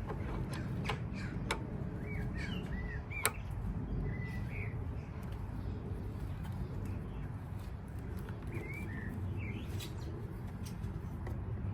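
Light clicks and taps of scooter rear-wheel parts being handled and fitted, the sharpest about three seconds in. Short bird chirps come a few times over a steady low rumble.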